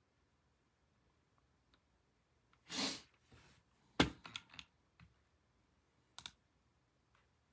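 A few scattered clicks and taps from things handled on a tabletop, with a short rustle about three seconds in, one louder sharp click about a second later followed by a few lighter ones, and a quick double click near the end.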